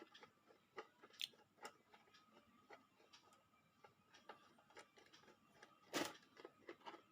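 Faint, scattered clicks and ticks of a plastic 5-in-1 electrical switch box being opened, with a sharper click about six seconds in.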